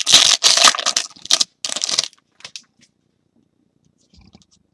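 Trading card pack wrapper being crumpled and handled in loud bursts for about two seconds, then a few faint ticks of cards being handled.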